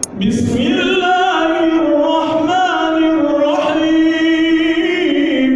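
An imam's male voice chanting Qur'anic recitation in one long held melodic phrase, its pitch gliding and turning in small ornamented wavers.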